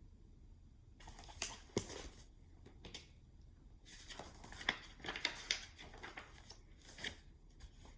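Faint paper rustling with small clicks and swishes, paper being handled: the pages of a picture book being turned.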